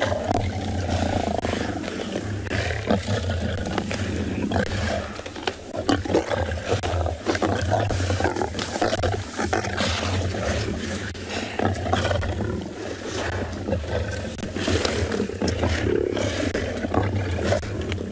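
Several lions growling and snarling continuously as they feed together on a warthog kill, with frequent sharp tearing and crunching sounds from the feeding.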